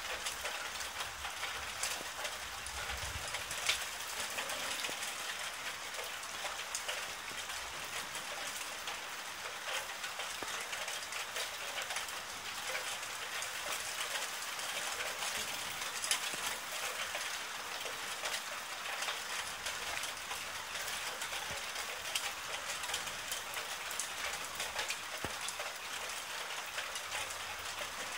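Steady rain falling during a thunderstorm, an even hiss with occasional sharper drop hits.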